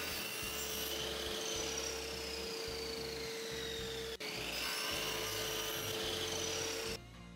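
Stanley miter saw running and cross-cutting a thin strip of pallet wood, with a steady motor hum and high whines that slowly slide in pitch as the blade cuts. The saw sound breaks off sharply about 4 s in, resumes, and gives way to background music about 7 s in.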